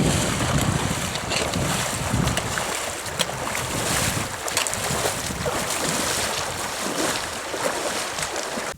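Wind buffeting the microphone outdoors, a loud rushing noise with gusty low rumble that eases after the first few seconds.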